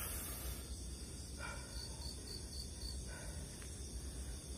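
Crickets and other night insects chirring steadily, with a quick run of about five higher chirps near the middle.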